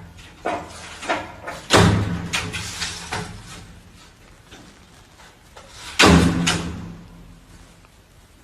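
Two loud bangs, about four seconds apart, each dying away over a second or so, with a few lighter knocks between them.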